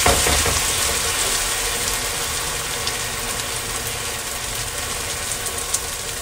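Lentil batter frying in hot oil in a nonstick pan: a steady sizzle that eases a little, while a silicone spatula spreads the patty flat, with a few faint clicks.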